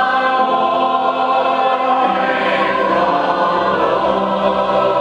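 Musical-theatre cast singing long held chords in chorus, moving to a new chord about two seconds in.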